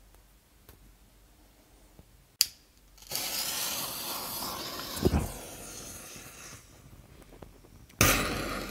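A burning pyrotechnic spraying sparks, hissing. A sharp crack comes about two and a half seconds in, then a hiss of about three seconds with a thump partway through, and a second loud hiss starts suddenly near the end and fades.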